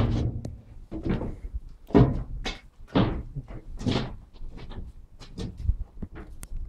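A sharp knock at the start, then a string of knocks and thuds about once a second: footsteps and bumps against the metal floor and fittings of a diesel locomotive's engine room.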